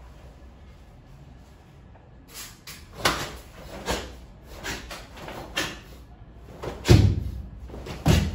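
Karate gi snapping sharply with fast punches and blocks during a kata, a run of about seven cracks starting about two seconds in. The last two are the loudest and carry a heavy low thud.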